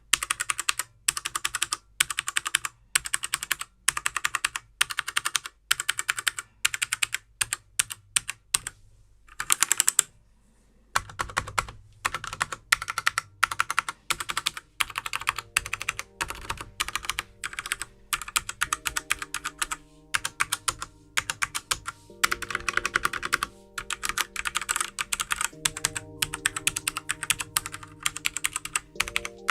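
Fast typing on a Machenike K500 mechanical keyboard with brown tactile switches: a rapid run of key clicks with a brief pause about ten seconds in. Soft background music comes in about halfway.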